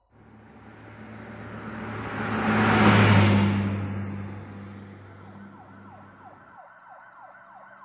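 A motor vehicle passes by, its engine hum and road noise rising to a peak about three seconds in and fading away. From about five seconds a fainter emergency siren starts, yelping quickly at about three sweeps a second.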